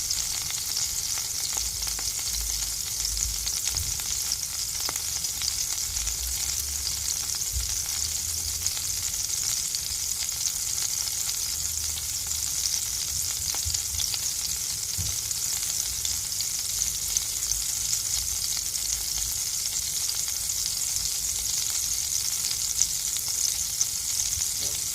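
White bread toasting in melted butter in a frying pan, sizzling steadily with faint small crackles.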